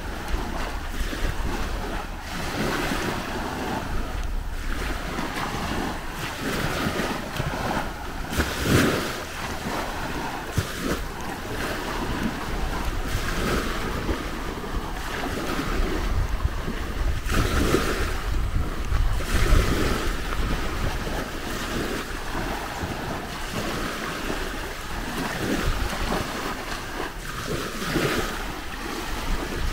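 Sea waves washing onto a beach, swelling and falling every few seconds, with wind buffeting the microphone.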